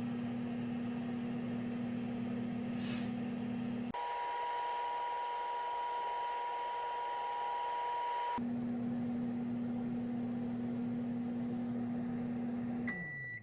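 Microwave oven running with a steady low hum. For about four seconds in the middle the hum gives way to a steady high tone with hiss. Near the end the hum winds down as the oven stops, and it gives a single high beep as the cycle finishes.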